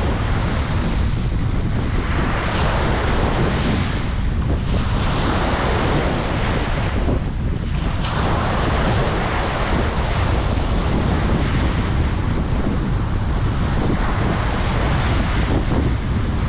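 Ocean surf breaking and washing on a beach, a steady hiss that swells and ebbs with brief lulls about four and seven and a half seconds in, over a low rumble of wind on the microphone.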